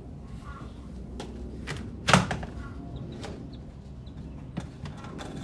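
A handful of sharp knocks and clunks, the loudest about two seconds in.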